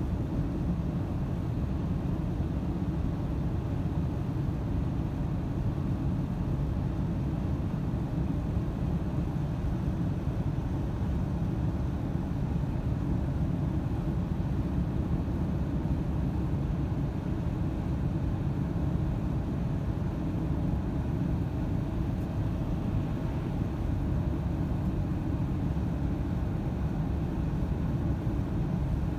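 Steady low rumble of a car driving on a wet, snowy highway, heard from inside the cabin: tyre and road noise with the engine beneath, unchanging throughout.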